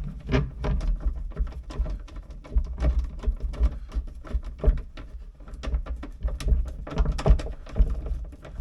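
Irregular light clicks and knocks of a cabinet door, its hinge and screws being handled and fitted by hand, over an uneven low rumble from a hand-held camera.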